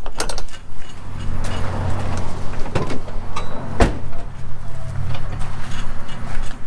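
A steady low motor hum begins about a second in and holds, with a few sharp clicks and knocks over it, the loudest a little under four seconds in.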